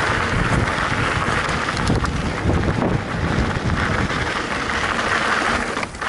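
Wind noise on the microphone over the rumble and rattle of a mountain bike's tyres on a dirt trail. It is a steady noisy haze with small knocks scattered through it.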